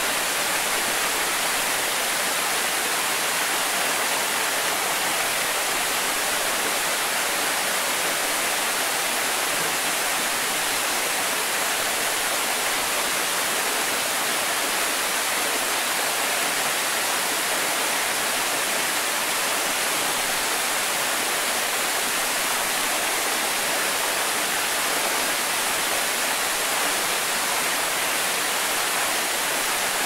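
Waterfall: a steady, unbroken rush of falling water. It is bright and hissy, with little deep rumble.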